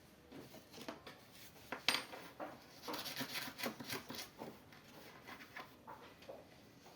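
Small metal blender parts being handled: light clinks and scraping, with a sharp click about two seconds in and a busier stretch of rubbing and clicking a second or so later.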